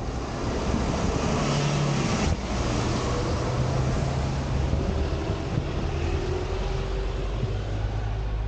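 A double-decker bus drives past close by, its engine running with a low hum over the noise of its tyres on the road.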